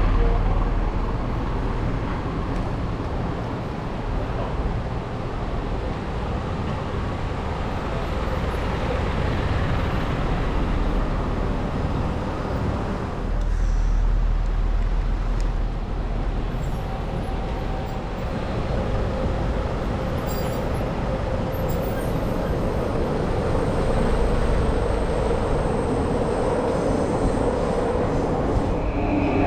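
Train running past at a city level crossing: continuous rail rumble mixed with traffic noise, heaviest for a few seconds around the middle, with a steady hum building through the second half.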